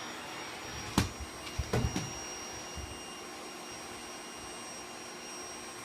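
Vacuum cleaner running steadily with a thin high whine, with a sharp knock about a second in and a few more knocks shortly after.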